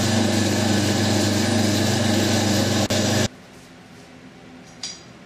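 Benchtop drill press running and boring a pin hole through a parang's steel tang: a steady motor sound with cutting noise, dipping briefly just before it cuts off suddenly about three seconds in. After that only faint room tone remains, with a small click near the end.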